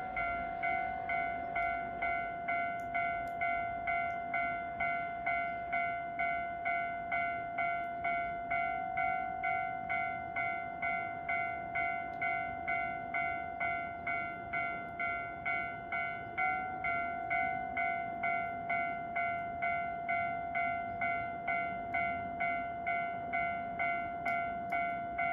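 Electronic railway warning bell, of the kind at a Japanese level crossing, ringing in an even, steady pulse about twice a second to signal an approaching train.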